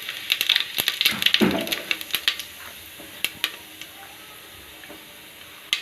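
Cumin seeds crackling in hot oil in a pressure cooker: a fast run of sharp pops in the first two seconds or so, then thinning to occasional pops over a faint steady sizzle.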